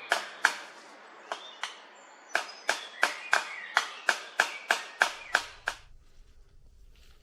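Hammer driving a nail, about fifteen sharp blows at roughly three a second with a couple of short pauses, each blow ringing briefly; the hammering stops near the end.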